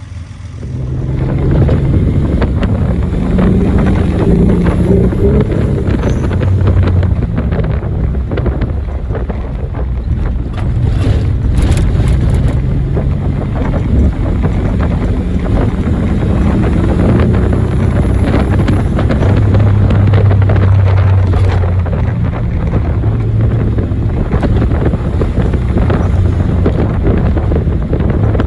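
Nissan 300ZX (Z31) V6 engine running as the car is driven, with wind noise buffeting the microphone.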